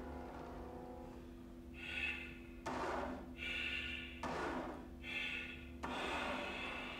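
Chamber music for flute and piano: a held low piano chord under high flute notes. It is broken three times, about a second and a half apart, by sudden swishing strokes of silver thimbles on a sheet of drawing paper, each about half a second long.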